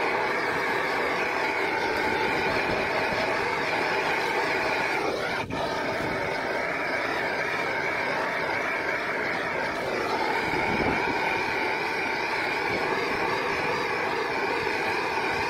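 Gas torch (LPG/propane) burning with a steady roar as it is played over the heat-shrink sleeves of a 13.8 kV cable joint, with one brief dip about five and a half seconds in.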